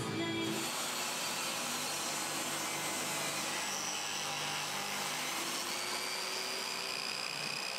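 Table saw running steadily with its blade cutting along a wooden board, one of several light passes taken to ease the load on the saw.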